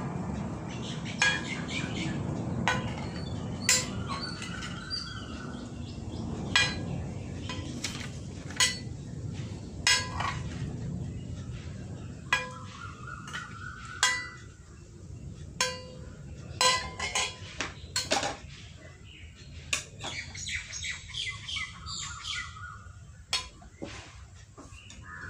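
Spoon clinking against a bowl in sharp, irregular taps while mashed banana, steamed rice and coconut milk are stirred together. Birds chirp in the background in three short spells.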